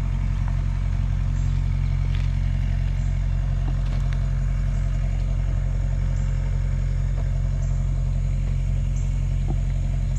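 A motor engine idling steadily, a constant low hum with no change in speed, with a few faint light clicks over it.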